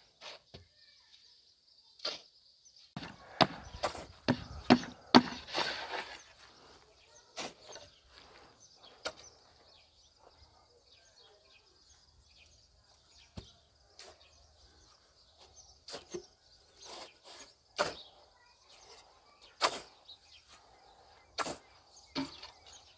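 Irregular sharp knocks and clanks with short bursts of scraping, the sound of manual cement-brick making with shovels and a brick mould, over a faint steady high-pitched whine.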